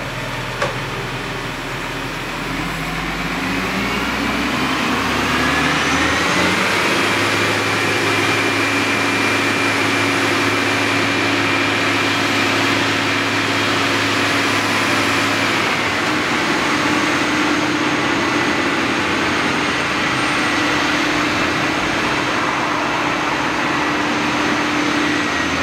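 Truck-mounted telescopic crane's engine revving up over a few seconds and holding at high speed as it drives the hydraulics to raise and extend the boom, with a high steady whine above it. The engine note shifts slightly about two-thirds of the way through, then holds steady again.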